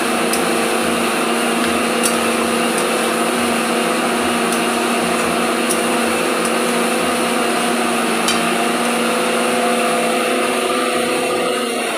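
A small electric motor running with a steady hum and whir, starting to wind down right at the end, with a few sharp metal clinks of a spatula against an iron wok as frying mutton is stirred.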